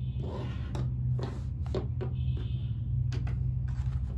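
Small plastic camera mounts and packaging being handled: a string of light clicks and rustles over a steady low hum.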